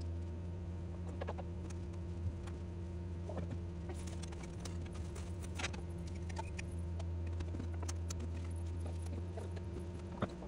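Steady low hum of a running appliance or motor, with soft rustling and a few light clicks and taps as cotton fabric is folded and smoothed and a metal ruler is handled on a wooden tabletop.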